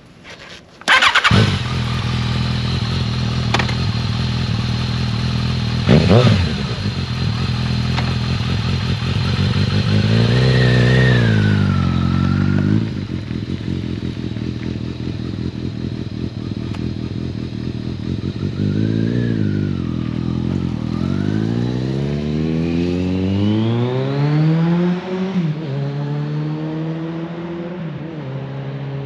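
Kawasaki ZRX1200R inline-four engine through an ART Pro Series II slip-on exhaust, heard from the rider's helmet. The engine sound begins suddenly about a second in and idles with a deep, steady note. It is blipped sharply once and revved twice, then rises in pitch as the bike pulls away and accelerates.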